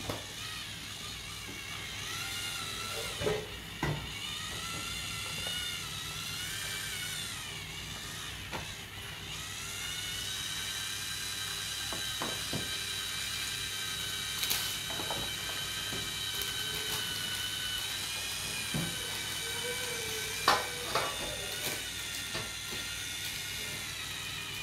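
Small handheld battery mixer whirring as its beater runs through muffin batter in a steel bowl. Its whine wavers in pitch in the first half as the load changes, then holds steady. A few sharp knocks come from the beater hitting the bowl.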